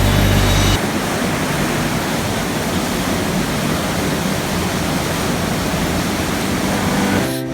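Steady rushing of river water cascading through a rocky canyon, an even loud hiss. Background music briefly runs under it at the start and comes back just before the end.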